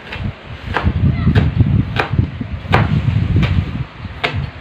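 Kitchen knife chopping vegetables on a cutting board: seven sharp strokes, about one every two-thirds of a second. A low rumble runs under the middle strokes.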